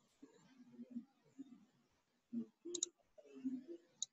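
Computer mouse clicking: a quick double click a little under three seconds in, and a single click near the end.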